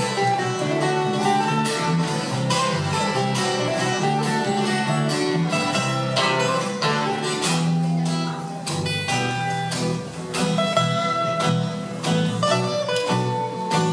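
Acoustic guitars strumming chords in a steady rhythm, an instrumental passage with no singing.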